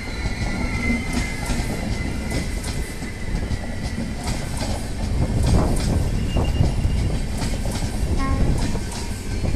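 An Indian Railways express's LHB passenger coaches rolling past: a steady rumble, with wheels clicking over rail joints.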